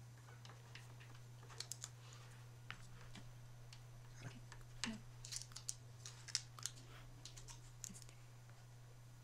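Faint, scattered small clicks and crackles of vinyl decal transfer tape being pressed down and peeled off a wooden board by fingertips and a pointed wooden stick, in clusters a couple of times, over a steady low hum.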